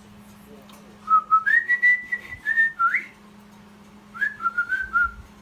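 Cockatiel mating-call whistle: two whistled phrases, the first about two seconds long, stepping up in pitch and ending in a quick upward sweep, the second shorter and wavering near the end.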